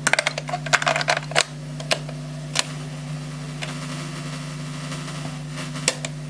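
Clicking of a cassette deck's transport mechanism and controls being worked: a quick run of clicks in the first second and a half, then a few single clicks, over a steady low hum.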